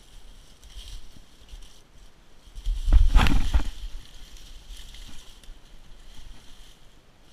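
A person slipping and sliding down a steep wooded slope: a burst of crunching and scraping through dry leaves, brush and dirt about three seconds in, between quieter footsteps and rustling in the leaf litter.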